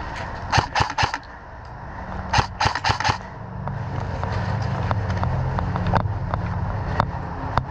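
Airsoft guns firing: a quick string of about four shots, then a second string of about five, with a few single shots later. A steady low rumble runs beneath.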